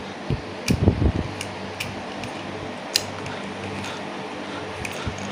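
Zorro DME series spinning reel handled and cranked by hand: soft knocks and scattered sharp clicks of the reel's handle and rotor, over a steady background hum.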